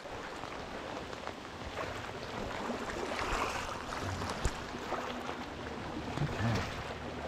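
Rain falling steadily on the surface of a flowing stream: an even hiss of water. One brief knock about halfway through.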